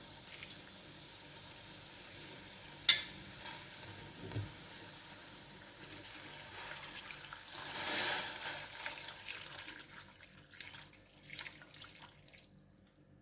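Cow skin cooking in a pot with onions and seasoning: a steady hiss of liquid, a sharp clink about three seconds in, and a louder rush of water noise around eight seconds that dies away near the end.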